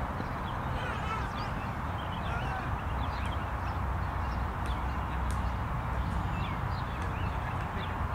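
Birds chirping and calling in short, scattered notes over a steady low rumble.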